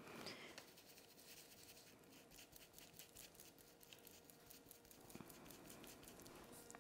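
Near silence with faint, quick taps and scratches of a dry stencil brush dabbing and scrubbing paint onto a painted wooden cut-out.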